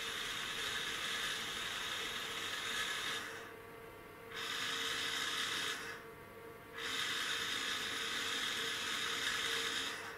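Servo motor and gear train of an aircraft master compass indicator whirring in three spells as the compass card slews to follow a hand-turned synchro transmitter, stopping briefly twice, over a faint steady electrical hum. The motor's damping generator is switched in, so the card settles without oscillating.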